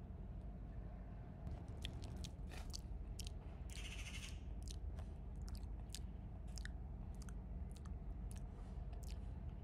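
Cats chewing wet cat food: irregular wet smacking and chewing clicks begin about a second and a half in, over a low steady rumble.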